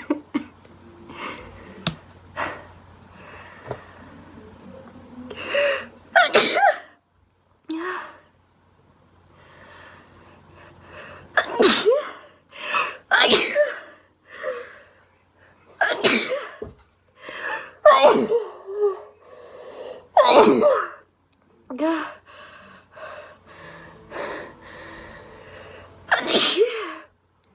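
A young woman sneezing over and over: about seven loud sneezes spread through, with fainter catching breaths between them.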